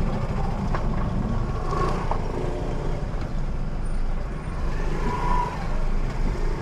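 A car being driven: steady engine and road rumble.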